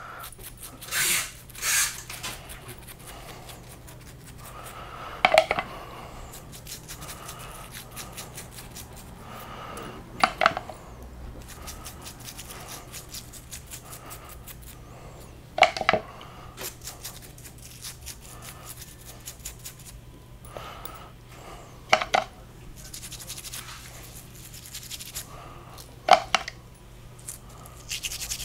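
A toothbrush scrubbing small steel differential gears and pins, its bristles scratching in short spells, with five sharp clinks of the metal parts being set down, about five seconds apart.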